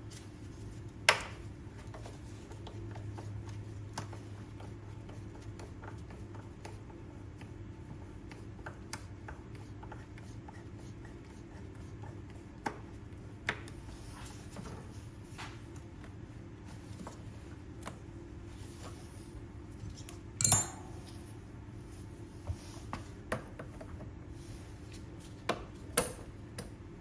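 Metal hand tools and parts clinking and knocking now and then, with the loudest clatter about twenty seconds in, over a steady low hum.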